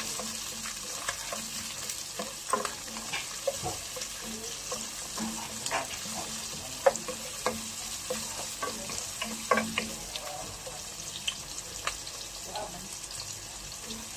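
Diced red onion sizzling as it fries in oil in a pot, stirred with a wooden spoon that knocks and scrapes against the pot now and then, a couple of knocks louder than the rest.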